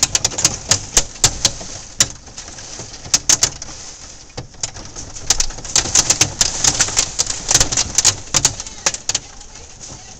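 Hailstones pelting down: a dense, irregular clatter of sharp clicks and ticks as they strike close by, over the steady hiss of the storm. The clatter thins briefly a little before the middle, then comes back heavier.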